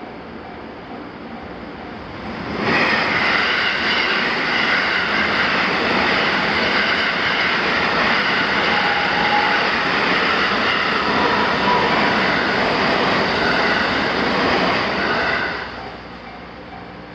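A JR Sanyo Main Line train passing over the level crossing: a loud rush of wheel and rail noise that starts abruptly about two and a half seconds in, runs for about thirteen seconds, then drops away. The crossing's warning bell rings in an even, repeating pattern before the train arrives and again after it has passed.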